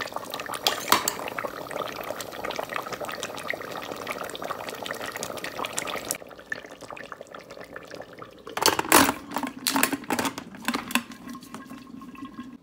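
Mutton korma sizzling and bubbling in oily gravy in a pot, with a dense crackle that drops away about halfway through. A run of loud knocks and clatters follows, like a metal ladle against the pot.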